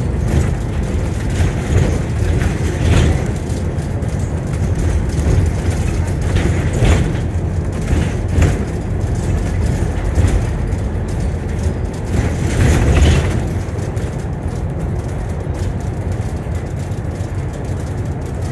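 Alexander Dennis Enviro400 MMC double-decker bus heard from the lower deck while driving: a steady low engine and road rumble. A few short, louder knocks and rattles come from the body and fittings.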